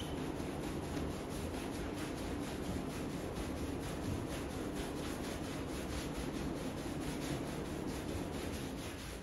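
Hand brush scrubbing the foamy, shampooed pile of a small Bokhara rug in quick, even strokes: a steady wet scrubbing and swishing.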